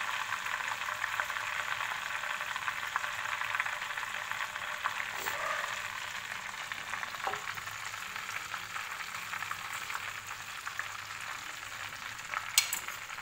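Hot oil sizzling and crackling steadily around battered, stuffed green chillies deep-frying in a wok, easing off slightly over time. A single sharp click near the end.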